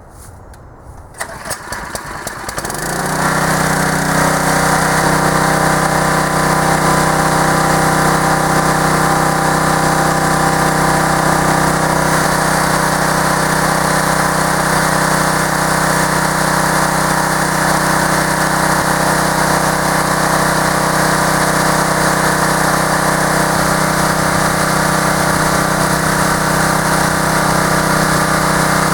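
Small gasoline engine, presumably the wood splitter's, sputtering and catching in the first few seconds, then running steadily.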